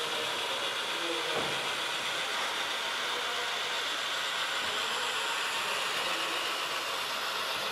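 Model trains running on the layout's track: a steady, even rolling noise with no breaks.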